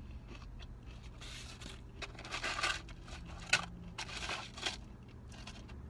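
Chewing fried battered shrimp, with several short crackly bursts of crunching and rustling from the paper-lined takeout box being handled, over a low steady hum.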